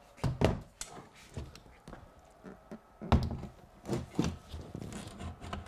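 A large whiteboard being handled and set in place against a wall, bumping with several dull thunks and knocks; the loudest come about half a second in and about three seconds in.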